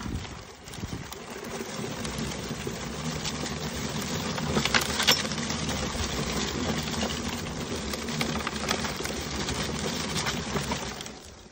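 Gardena push leaf collector rolling over a lawn, its wheel-driven brush roller whirring steadily and flicking leaves into the catch bag, with a few sharp clicks about five seconds in. It goes quieter briefly just after the start and again at the end.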